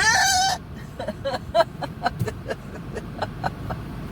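A woman's hiccup: one loud, high-pitched, squeaky hiccup at the start, followed by a string of short, soft vocal catches, all over the steady low road noise inside a moving car.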